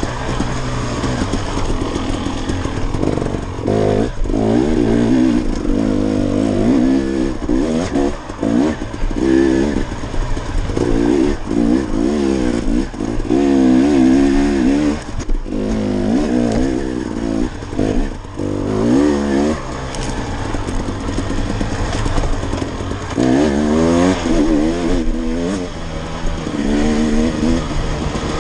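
KTM 300XC dirt bike's single-cylinder two-stroke engine revving up and down over and over as the throttle is worked on and off, with brief drops in between.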